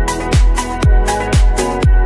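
Background electronic dance music: a steady kick drum about two beats a second, with hi-hat strikes over held synth chords.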